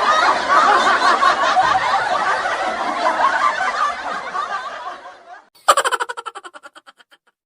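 Laughter sound effect, a dense run of snickering and chuckling that fades out about five seconds in. Then a short, rapid pulsing sound starts suddenly and dies away within about a second and a half.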